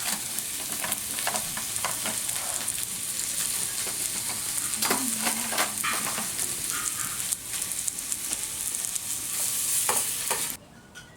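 Food sizzling as it fries, a steady hiss with scattered light clicks; the sizzle cuts off suddenly near the end.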